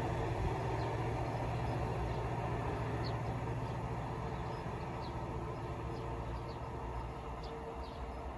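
DSB Class ME locomotive's EMD 645 two-stroke diesel engine running with a low, steady drone, fading slowly as the train pulls away. A few brief bird chirps sound over it.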